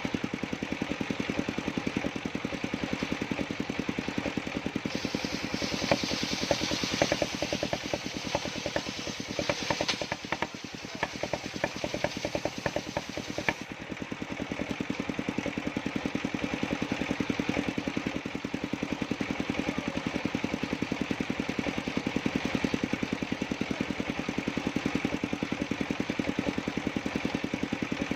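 Engine-driven circular sawmill running with a steady fast thudding from its engine. From about five seconds in until about thirteen seconds, a brighter sawing noise sounds as the blade cuts through dry jackfruit wood.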